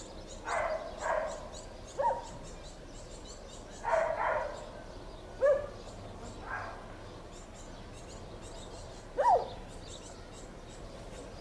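A dog barking off and on: single barks and short pairs, with gaps of one to three seconds between them.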